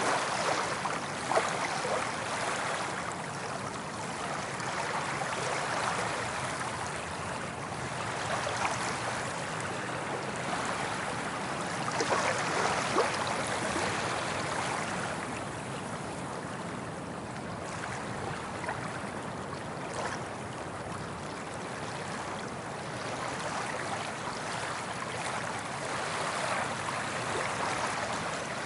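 Small ocean waves breaking and washing up a beach: a continuous hiss of surf that swells and eases as each wave comes in, with the fizz of foam.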